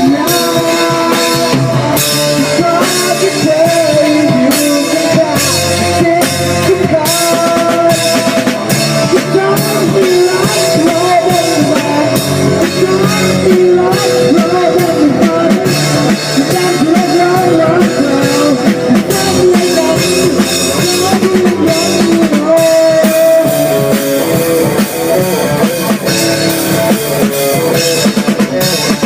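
Band music with a drum kit, bass drum and guitar, a steady beat.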